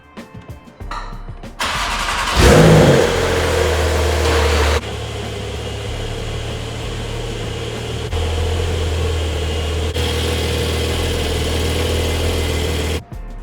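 BMW 440i's turbocharged 3.0-litre straight-six starting through an AWE axle-back exhaust: a sharp rev flare about two seconds in that quickly falls away, then a steady idle, which stops abruptly near the end.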